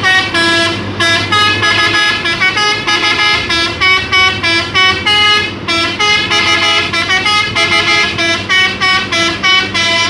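Telolet musical air horn on a Hino dump truck playing a fast tune of short notes, pitch jumping several times a second, with only brief breaks, over the low hum of the truck's engine.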